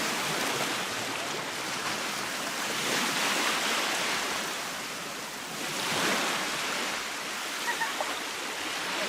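Baltic Sea surf, waves breaking and washing up the beach in a steady rush, swelling louder about three seconds in and again about six seconds in.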